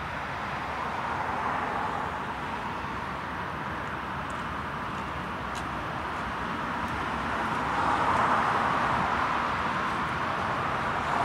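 Road traffic noise: cars passing on a nearby road, a steady hiss of tyres that swells about a second in and again near the end.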